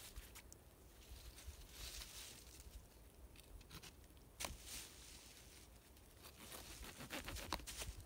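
Faint rustling and scraping of branches and snow-covered leaf litter as a man works at the ground by hand, with scattered snaps and clicks. There is one sharper snap about four and a half seconds in and a run of clicks near the end.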